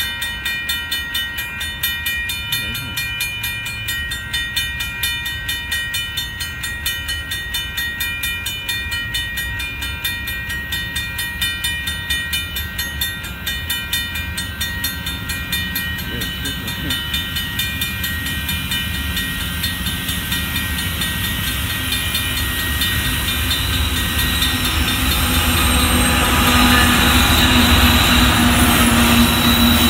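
Railroad crossing bells ringing in a fast, steady repeating pattern as a Union Pacific freight train approaches. The train's rumble grows louder through the second half, and its diesel locomotives pass near the end.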